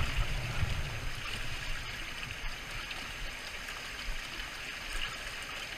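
Steady rush of fast river current flowing around a drifting pontoon raft, with a low rumble in the first second.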